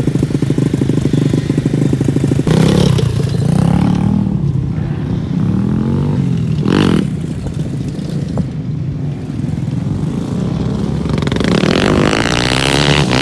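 Motocross dirt bike engine running and being revved up and down several times, its pitch rising and falling.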